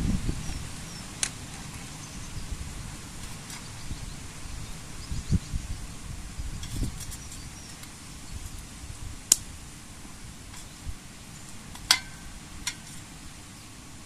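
Wind buffeting the microphone in a gusty low rumble, with a handful of sharp clicks and taps, two of them loud in the second half, from the twigs and the tin-can wood gas stove being handled.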